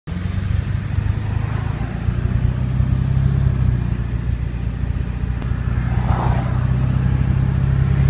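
Car engine and road noise heard from inside the cabin while driving at a steady speed: a low, even drone.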